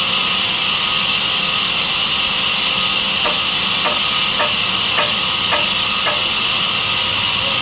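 Sawmill saw machine running with a loud, steady high-pitched hiss. Midway there is a run of six faint short ticks, about half a second apart.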